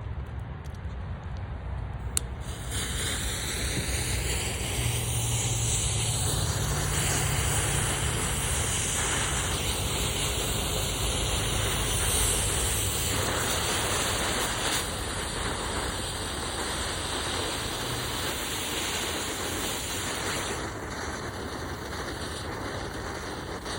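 Fireworks fuse burning with a steady hiss. A sharp click comes about two seconds in, the hiss builds over the next couple of seconds, then softens near the end.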